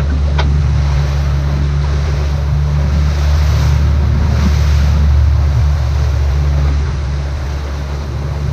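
Boat engine running steadily under way, a constant low hum, with wind buffeting the microphone and water rushing past the hull.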